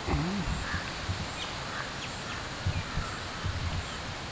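Steady outdoor rustling noise with a few faint, short bird chirps.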